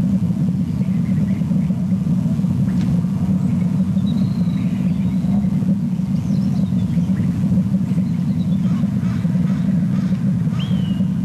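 A steady low rumble picked up by an outdoor camera microphone, with faint short bird chirps now and then; one falling chirp comes near the end.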